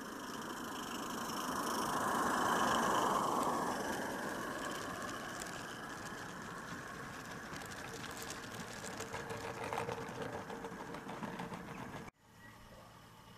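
Regner Konrad 32 mm gauge live-steam locomotive passing close by with a hiss of steam, loudest about two to three seconds in, followed by its train of small skip wagons rattling and clicking over the track. The sound cuts off abruptly near the end.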